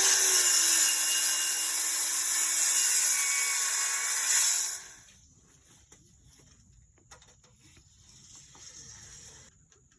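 Power saw cutting through a rough-cut wooden board, its motor tone sagging a little under load, then cutting off about five seconds in.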